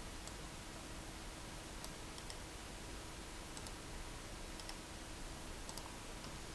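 Faint computer mouse clicks, single and in quick pairs, every second or so, over a steady low hiss and a faint hum.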